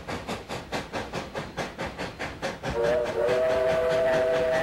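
Steam locomotive working hard, its exhaust chuffing rapidly at about four to five beats a second. About three seconds in, its chime whistle sounds a steady three-note chord and holds.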